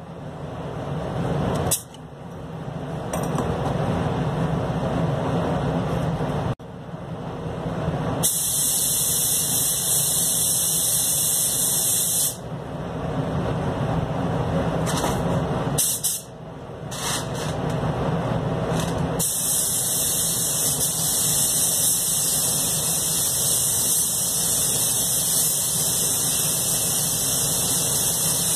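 Anest Iwata Classic Plus air spray gun hissing as it sprays paint. The hiss starts about eight seconds in, breaks off for several seconds in the middle apart from a few short bursts, then runs steadily through the last third. A steady low rumble runs underneath throughout.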